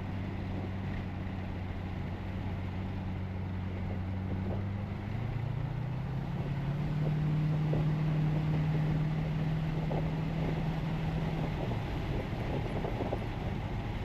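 1976 Cadillac Eldorado's 500 cubic-inch V8 running on the road. Its note rises about five seconds in, holds higher for several seconds as the car accelerates, then falls back a couple of seconds before the end.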